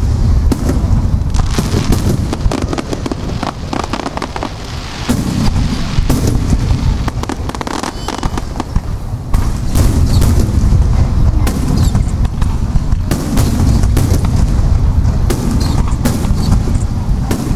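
Aerial firework shells bursting in rapid succession, a starmine barrage: many booms, close together and overlapping, over a continuous low rumble.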